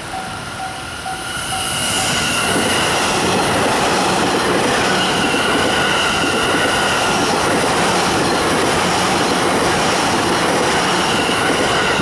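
A level-crossing warning bell rings in a steady pulse as a JR East E657 series electric limited express approaches. About two seconds in, the train's high-speed pass takes over: a loud, steady rush of wheels on rail with a high whine that drowns out the bell.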